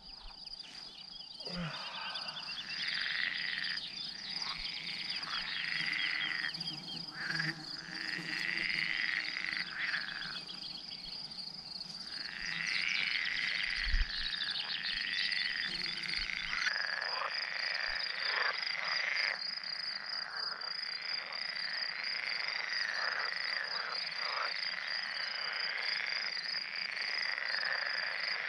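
A chorus of frogs croaking in a pond, many overlapping calls repeating that fall in pitch, over a steady high-pitched pulsing trill. There is a single thump about halfway through.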